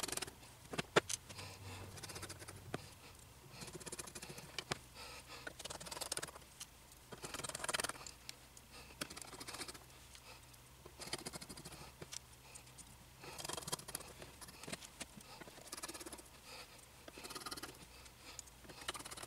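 Light, scattered clicks and scratchy rustles of tiny metal screws being picked from a pile and driven by hand with a screwdriver into the frame of a resin printer's FEP vat, with a couple of sharper clicks about a second in.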